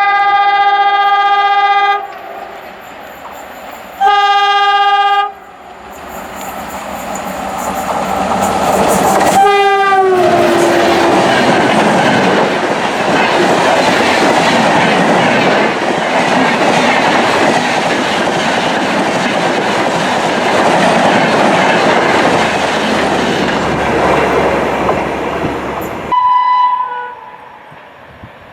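WDM3A ALCO diesel locomotive sounding its horn in two blasts as it approaches. It sounds the horn again as it passes, the note dropping in pitch, and its train then rushes by at speed with a steady rattle of wheels over the rails. Near the end the sound cuts off abruptly and a short horn note follows.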